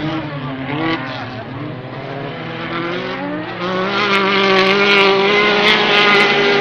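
Racing buggy engines in an autocross race, revving up and down through gear changes, then held at high revs and growing louder from about four seconds in.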